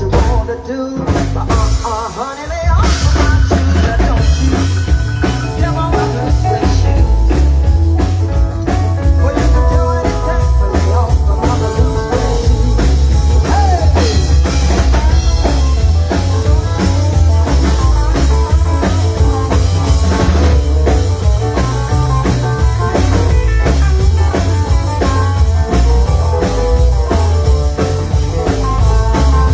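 Live band playing upbeat rock and roll on drum kit, bass and electric guitar. After a short lull, the full band comes in about two and a half seconds in.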